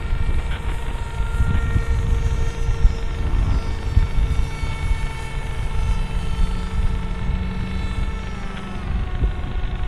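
Electric motor and propeller of an S800 Sky Shadow FPV flying wing whining in flight, with the pitch dropping near the end, over wind buffeting on the microphone.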